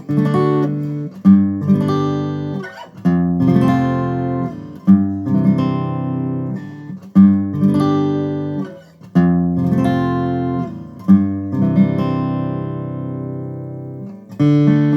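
Martin OM-21 Standard acoustic guitar, a rosewood-and-spruce orchestra-model flat-top, strummed in chords about once a second, each chord ringing on. Near the end one chord is left to ring out and fade before the next strum.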